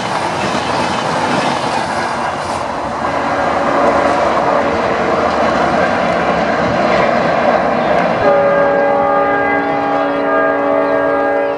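Indian Railways double-decker express coaches rolling past at speed, a dense steady rush of wheel-on-rail noise. About eight seconds in, a train horn sounds one long, steady chord of several notes, held for about three seconds until it cuts off.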